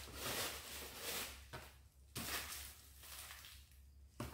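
Packaging rustling and crinkling as it is handled and opened by hand, loudest in the first second and a half, with a sharp crinkle about two seconds in and a short click near the end.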